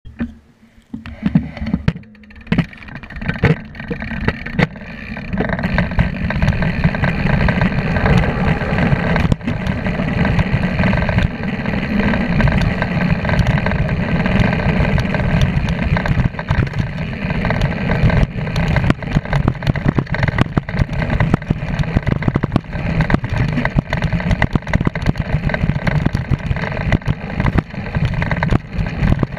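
Mountain bike descending a dirt trail at speed: wind rushing over the camera microphone and the knobby tyre rolling over dirt, with frequent rattles and knocks as the bike runs over bumps. Quieter and broken for the first few seconds, then a loud steady rush from about five seconds in.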